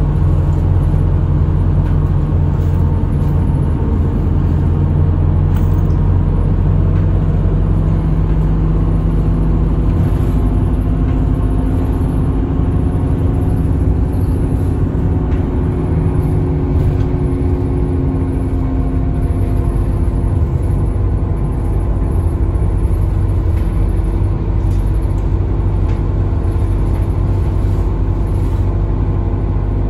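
Route bus running on the road, heard from inside the cabin: a steady engine note whose pitch drifts slowly up and down with speed, over heavy road rumble.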